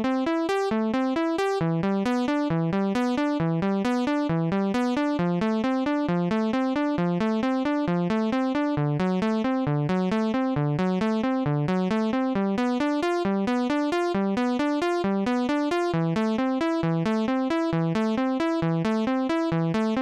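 Logic Pro's Retro Synth default patch playing an arpeggio of latched chords: evenly spaced notes climbing in repeating upward runs at a steady pace. The chord underneath changes a few times, and the arpeggio carries on without keys being held.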